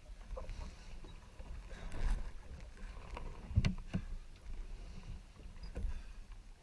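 Water sloshing and splashing against a small sailboat's hull as a swimmer climbs back aboard the moving boat, with a steady low rush and two sharp knocks a little past halfway.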